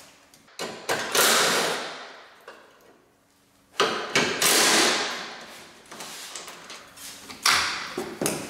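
Cordless 3/8-inch impact wrench run in three bursts, loosening the battery terminal and hold-down bolts on a Toyota Tacoma.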